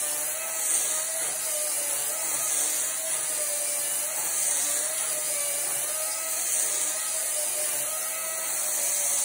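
Einhell 36 V battery chainsaw running steadily as its chain shaves across the face of a wood slice to plane it flat: a motor whine that wavers slightly over a bright, continuous cutting hiss.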